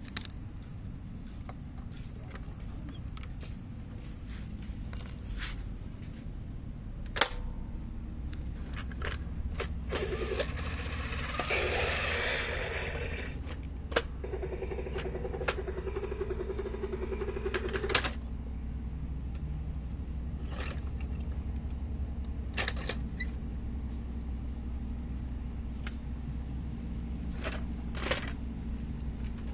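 Scattered sharp clicks and knocks of a vintage Matchbox toy helicopter's plastic parts being handled, over a steady low rumble. About a third of the way in there are a few seconds of hiss, then a buzz that lasts about four seconds.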